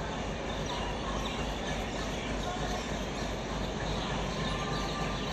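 Steady railway-station background noise: a constant low hum and rumble, with faint short chirps and distant voices over it.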